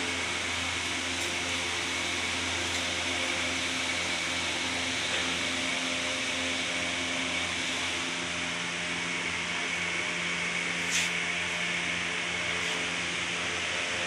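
A steady mechanical hum, like a motor or engine running without change, with a single brief click about eleven seconds in.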